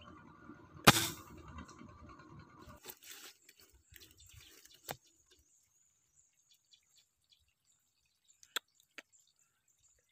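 A single PCP air rifle shot about a second in, a sharp crack with a short tail, then faint outdoor sound with two light clicks near the end.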